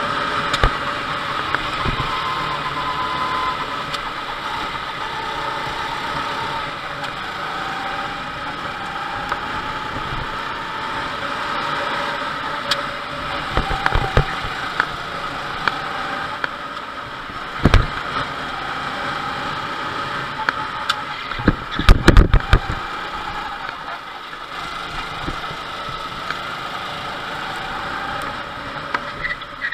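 Go-kart engine running under throttle, heard from an onboard camera, its pitch rising and falling with the corners over a steady rush of noise. Scattered knocks and rattles come through the chassis, the loudest a cluster of thumps about 22 seconds in.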